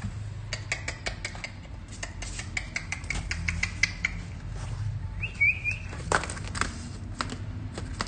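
Puppy's claws clicking and pattering on a tile floor, with a few short high squeaks a little past halfway.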